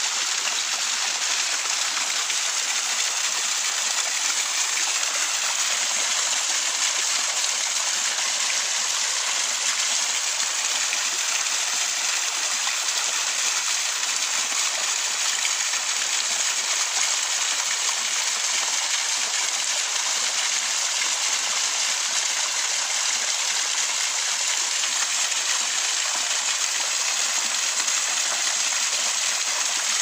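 Small natural waterfall splashing over rocks into a shallow pool: a steady, even rush of falling water.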